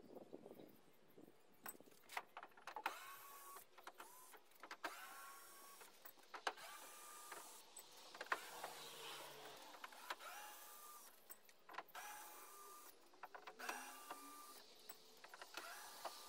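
A cordless drill whirring in short bursts, each one spinning up in pitch and then holding, repeated many times, with clicks and knocks of handling in between.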